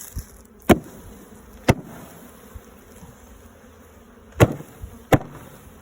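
Honeybees buzzing steadily around an opened hive, broken by five sharp knocks, about one a second at first and then three close together near the end.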